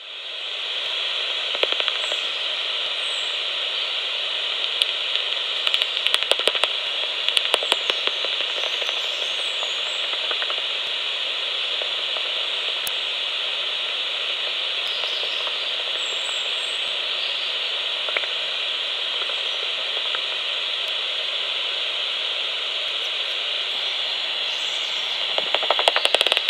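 Magenta Bat5 heterodyne bat detector output: a steady loud hiss broken by bursts of rapid clicks, the detector's rendering of bat echolocation calls, about two seconds in, again around six to eight seconds, and near the end.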